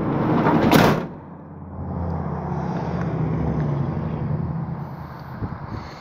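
Vehicle engine running at low speed, heard from inside the cab as a steady low hum. A brief loud rushing noise comes less than a second in.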